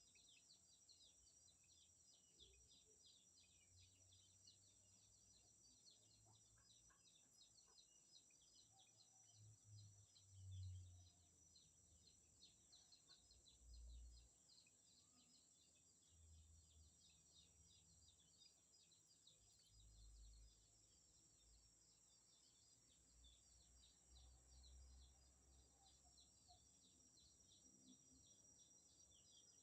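Faint outdoor ambience: a fast, unbroken high chirping with a steady high-pitched hiss above it, and a few soft low bumps, the loudest about ten seconds in.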